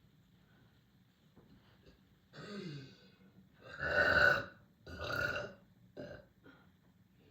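A person belching deeply four times: a short burp falling in pitch about two seconds in, the longest and loudest one around four seconds, another just after five seconds, and a brief one near six seconds.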